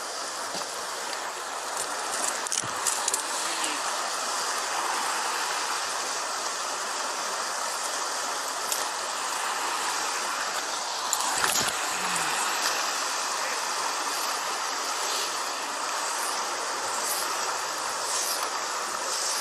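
Steady rush of fast-flowing floodwater pouring through a desert wash, with a couple of brief knocks.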